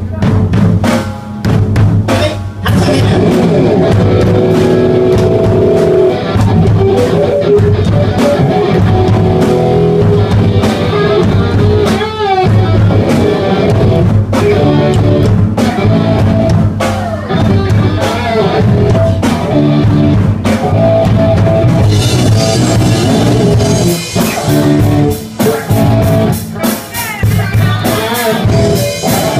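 Live rock band playing loud: a drum kit keeping a steady beat under electric guitar.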